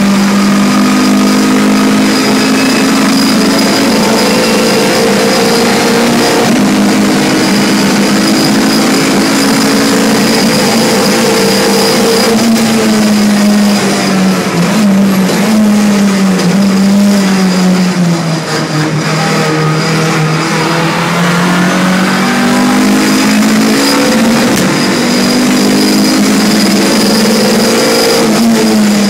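Tuned Renault Clio's engine heard from inside the cabin at racing speed on a circuit lap. The pitch holds high at first, drops through the middle as the car slows, and climbs again near the end under acceleration.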